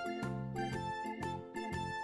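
Background music: a light, bouncy tune played on keyboard-like instruments, with a short note roughly every half second.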